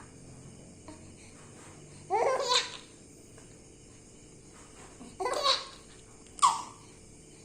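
A baby's high-pitched laughing squeals in short bursts: one about two seconds in, another around five seconds in, and a brief one right after it.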